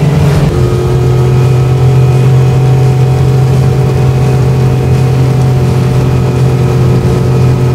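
Honda 115 four-stroke outboard motor running steadily at full throttle, driving an aluminium boat planing at about 75 km/h. A steady engine tone over rushing water and wind noise, the tone changing slightly about half a second in.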